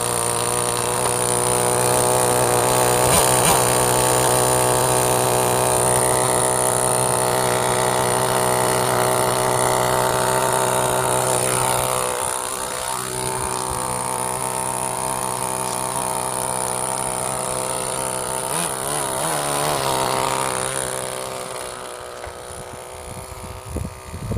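Small two-stroke nitro (glow-fuel) RC car engine running at a fairly steady high, buzzy pitch, dipping briefly about halfway through and fading near the end.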